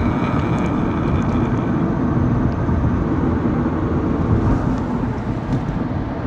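Steady road and engine rumble heard from inside a moving car's cabin. A faint high tone fades out about two seconds in.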